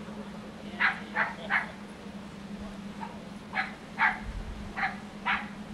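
Short, sharp animal calls or barks: three in quick succession about a second in, then four more spaced over the second half, over a steady low hum.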